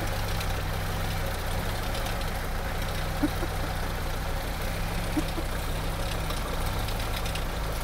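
Vauxhall Frontera 2.8 diesel engine running at low revs as the 4x4 crawls over a mound on three wheels, with two short knocks or creaks from the vehicle, about three seconds in and again about five seconds in.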